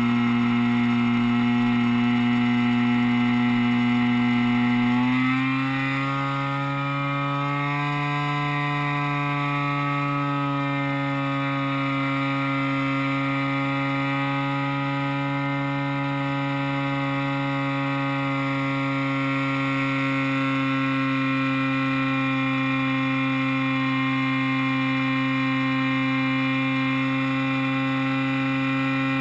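DLE 30 single-cylinder two-stroke gasoline engine of an RC de Havilland Beaver floatplane running steadily in flight, heard from onboard the plane. About five seconds in its pitch rises a little, then holds steady.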